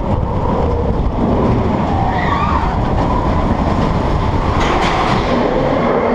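Expedition Everest roller coaster train running along its track, a steady rumble heard from on board the car.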